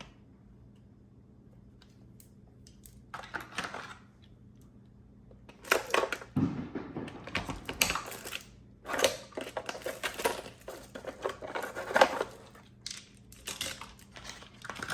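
Small tools and their plastic case being handled, with clicks, rattles and clatter of small metal and plastic pieces. After a quiet start there is a short burst about three seconds in, then irregular clattering from about six seconds on.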